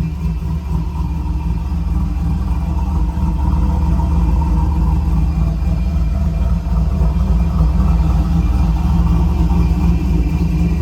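LS-swapped Chevrolet V8 idling with a steady low rumble, getting a little louder about four seconds in.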